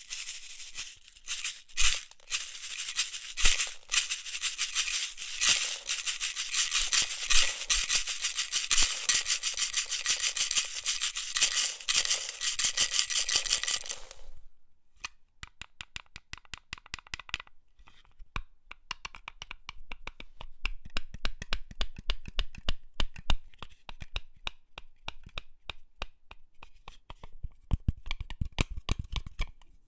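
Box of office pins shaken, a dense metallic rattle that stops abruptly about fourteen seconds in. A quick, uneven run of separate small clicks follows, with deeper knocks joining near the end.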